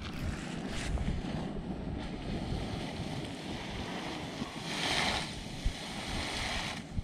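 Wind buffeting the microphone: a steady, rumbling rush with a stronger gust of hiss about five seconds in.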